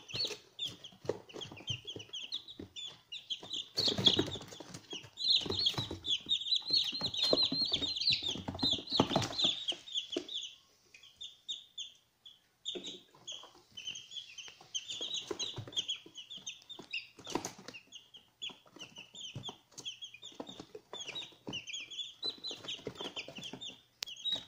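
Ayam Cemani chicks peeping constantly, many short high chirps overlapping, with rustling and scratching beneath them that is heaviest in the first half. The peeping stops for a couple of seconds about halfway through, then resumes.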